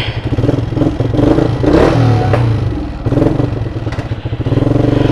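Yamaha motorcycle engine running and revved with a few throttle blips, then settling into a steadier, higher run near the end as the bike moves off.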